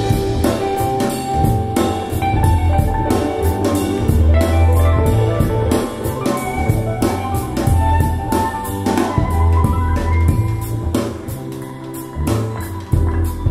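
Instrumental music with a steady drum beat and heavy bass, played back through the Peachtree Nova 300 Class D integrated amplifier and its speakers as a listening demo.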